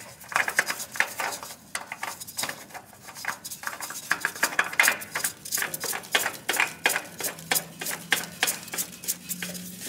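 New Kawasaki spin-on oil filter being threaded by hand onto the engine's filter mount: a run of light, irregular metallic clicks and scrapes, several a second.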